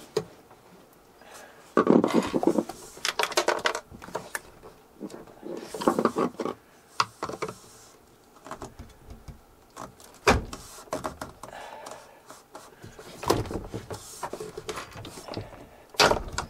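Hands and a flathead screwdriver prying at the clips of a Dometic 310 RV toilet's plastic flush valve: irregular plastic clicks, scrapes and rattles, with a sharp snap about ten seconds in and another near the end as the valve comes free.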